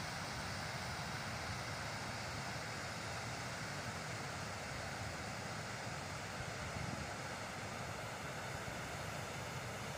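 Steady rush of water pouring over a low river weir, with wind rumbling on the microphone.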